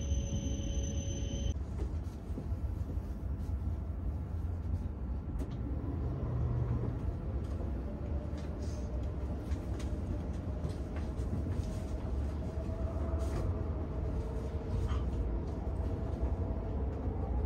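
Hayabusa Shinkansen bullet train running, heard inside the passenger car as a steady low rumble. A faint whine climbs in pitch near the end. The opening second or so still carries the tail of background music.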